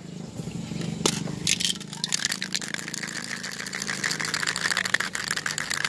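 Aerosol spray-paint can being shaken, its mixing ball rattling rapidly, starting about a second and a half in, with a steady low hum underneath.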